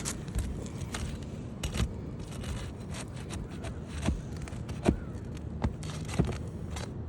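Irregular clicks, knocks and scraping on asphalt shingles as a damaged shingle is worked loose and pried out of an older roof, with a handful of louder knocks scattered through.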